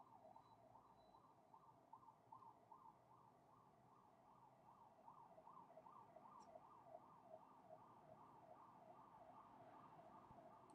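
Faint siren wailing in a rapid, even up-and-down yelp, about two to three sweeps a second.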